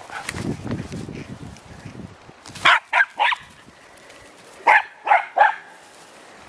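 Jack Russell terrier barking excitedly in two quick bursts of three sharp barks each, the second set about two seconds after the first. A low rumbling noise comes before the barks.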